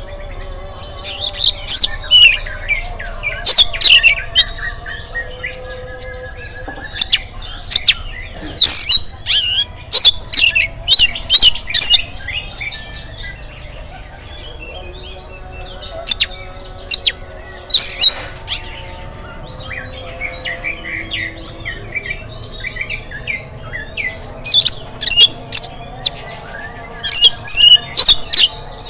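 Oriental magpie-robin (kacer) in full song, delivering loud bursts of rapid, varied whistled and sharp chattering phrases, separated by short gaps filled with quieter calls.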